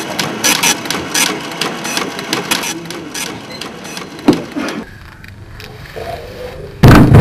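Irregular mechanical clicking and clattering that thins out and stops about five seconds in, then one loud, heavy thump near the end.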